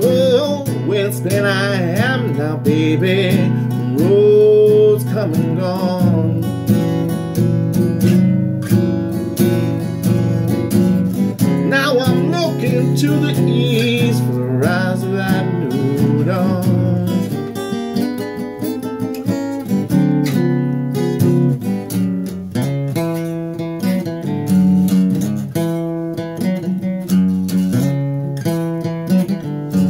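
Acoustic guitar strummed and picked in a slow blues, with a man singing over it in the first half; the guitar carries on alone through the second half.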